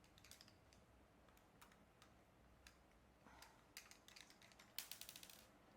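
Faint scattered clicks and ticks of a screwdriver and small screws against the plastic case of a drone remote controller as the screws are taken out, with a quick rattling run of clicks about five seconds in.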